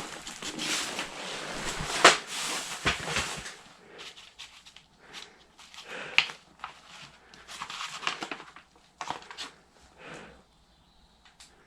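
Loose papers rustling and crinkling as they are handled and sifted through, with a sharp click about two seconds in, then scattered shorter, quieter rustles that die away toward the end.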